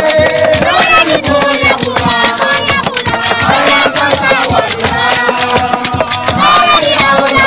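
Traditional West African music: several voices singing over fast, steady drumming and rattles.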